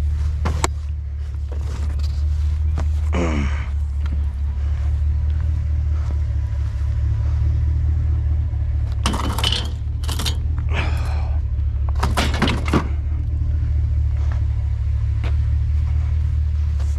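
Vehicle running, a steady low drone of engine and road rumble, most likely heard from inside the truck's cab. A few short higher-pitched squeaks or rattles come about three seconds in and again between about nine and thirteen seconds in.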